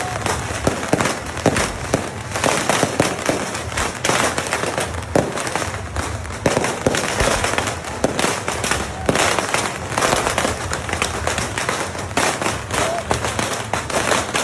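Fireworks and beehive-rocket firecrackers going off in a dense, unbroken barrage of sharp cracks and bangs.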